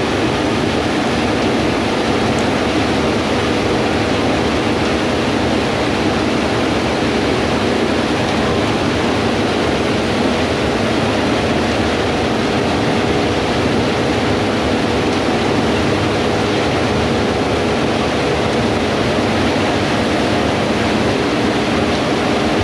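Fendt Ideal 8 combine harvester running steadily while harvesting: a constant machine hum under a loud, even rushing noise with no changes.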